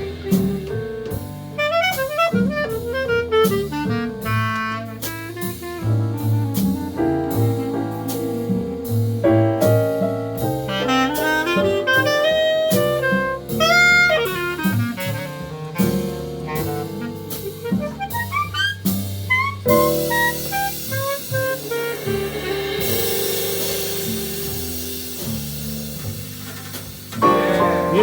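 Live small-band jazz: a saxophone plays fast melodic runs over piano and a drum kit keeping time. About twenty seconds in, the steady drum strokes give way to a continuous cymbal wash under a held note.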